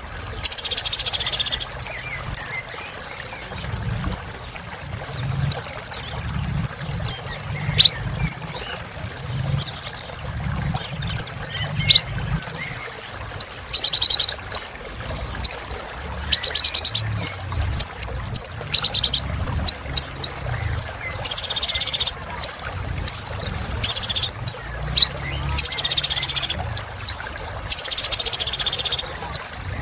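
Kolibri ninja sunbird singing: loud, very high chirps, quick downward-sweeping notes and buzzy trills in short repeated phrases, with brief pauses between them, over a low steady hum. This energetic 'gacor' song is used as a tutor recording to get caged birds singing again.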